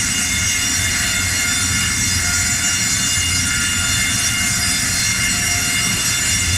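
Sawmill vertical band saw running with a loud, steady, unchanging sound: a low hum under a set of high steady tones.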